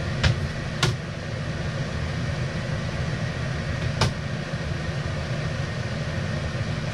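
Two sharp plastic clicks within the first second as the top section of a Thetford Porta Potti 365 portable cassette toilet is pushed down and latches onto the waste tank, then a single click about four seconds in as the toilet lid is lifted. A steady machine hum runs underneath.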